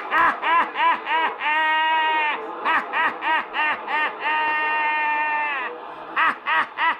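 Received audio from a Palomar CB radio's speaker: a pitched tune of quick rising-and-falling notes, about three a second, alternating with longer held notes, thin and cut off in the treble like radio audio.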